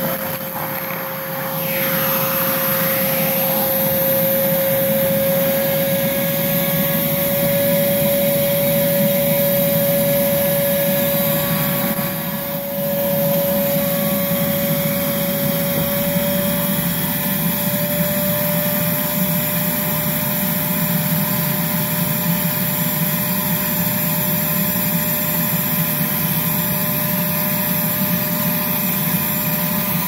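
Armor All AA255 wet/dry shop vacuum running with a steady motor whine and a rush of air, sucking dirt, dust, dog food and dog hair off a carpet through its narrow crevice nozzle. It comes up to full loudness over the first few seconds.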